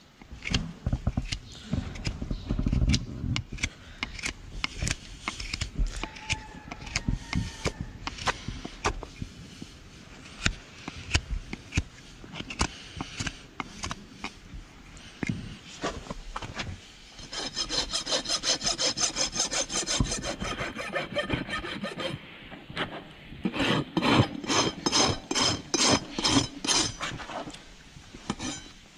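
A hoof knife pares and scrapes the sole of a horse's overgrown, laminitic hoof in short, irregular strokes. Later come two runs of quick, even back-and-forth strokes of a steel hoof rasp filing the hoof.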